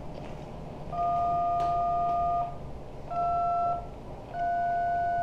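DTMF touch-tones from a handheld two-way radio's keypad: three separate two-tone beeps, the second one short. By their tone pairs they read as digits 1, 2 and 3, the kind of code keyed into a repeater controller.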